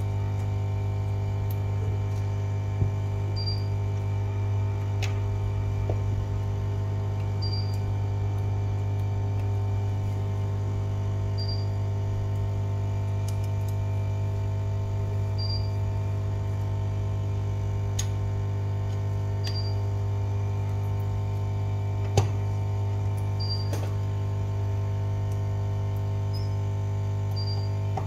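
Steady electrical hum with many overtones, a faint short chirp about every two seconds, and two sharp clicks, one about three seconds in and one about twenty-two seconds in.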